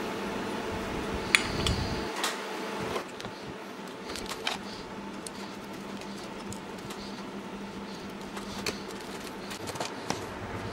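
Small metal parts clinking and tapping as a stainless hose clamp and a short steel tube are handled and fitted onto an angle grinder's head. There is one sharp click about a second in, then scattered lighter taps, over a faint steady hum.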